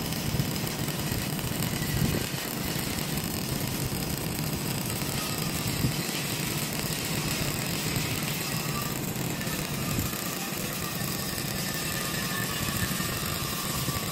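Stick (MMA) welding arc crackling steadily as the electrode burns along a seam in a steel tank wall, with a steady low hum beneath.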